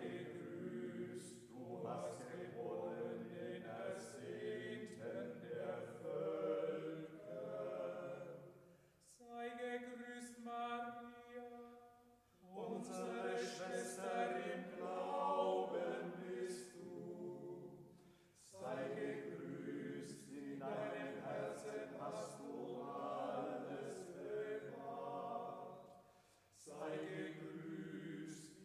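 A Marian hymn sung in slow, chant-like phrases with short breaths between them. One note is held long in the middle.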